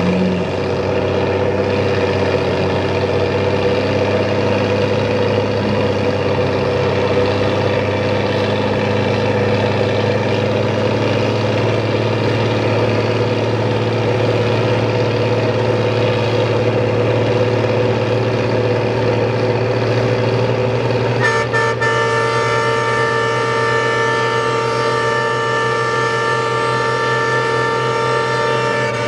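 Heavy truck engines running hard and steady under load as an M35 army cargo truck and two Ford Power Stroke diesel pickups pull against each other in a tug of war. About three-quarters of the way through, a vehicle horn starts sounding and is held steadily over the engines.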